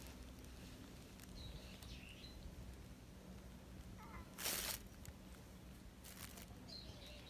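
A short brushing rustle about four and a half seconds in, with a weaker one near six seconds. Faint high chirps come around two seconds in and again near the end.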